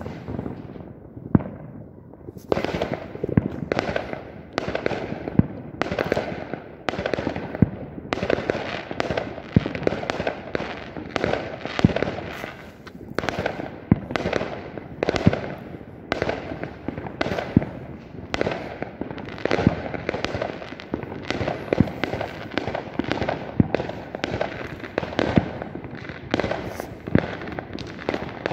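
New Year fireworks going off without pause: a steady barrage of sharp bangs, one or two a second, each trailing off in an echo, with crackling in between.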